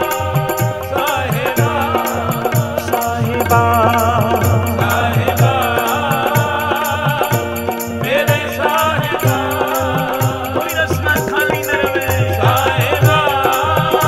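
Gurbani kirtan music: a harmonium plays a wavering melody over held notes while tabla strokes keep a steady rhythm underneath.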